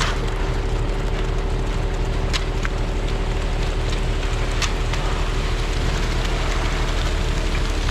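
An engine running steadily at a constant pace, with a few sharp clicks or knocks scattered through it.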